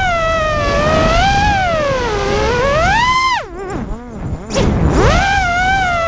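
Vortex 250 Pro racing quadcopter's electric motors whining as heard from the camera on board, the pitch sweeping up and down with the throttle. About three and a half seconds in the throttle is chopped: the whine drops low and quieter for about a second, then climbs back up as power comes on again.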